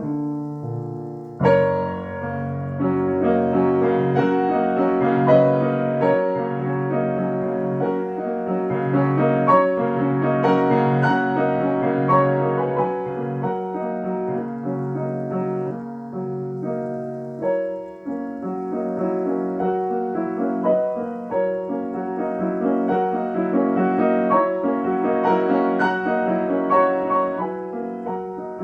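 Solo piano playing classical music: flowing chords and melody over held bass notes, with a strong new chord and deep bass entering about a second and a half in.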